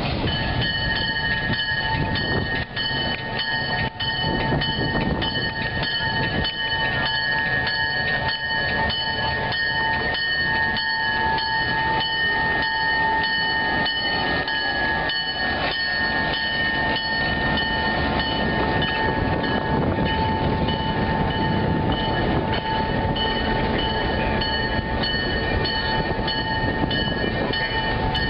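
Train moving along the track, heard on board. A continuous rumble runs under a steady high ringing tone and a regular beat of about two strikes a second.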